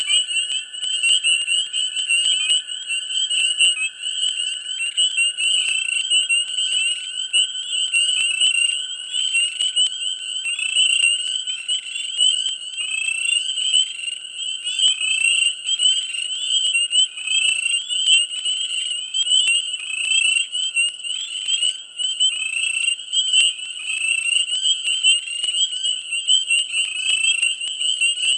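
Dense chorus of many frogs calling at once: a continuous high-pitched mass of overlapping calls that never lets up.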